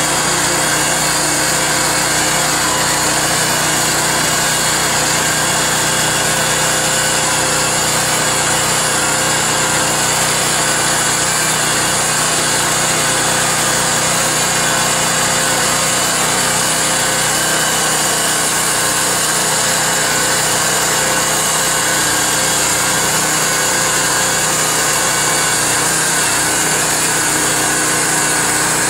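Portable band sawmill running steadily: its gasoline engine at working speed while the 1½-inch Wood-Mizer band blade saws through a log.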